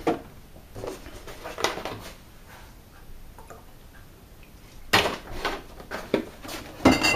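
Kitchen handling sounds: light knocks and clinks of a plastic milk bottle, a mug and the fridge, a quieter stretch while milk is poured into the mug, then a louder clatter about five seconds in.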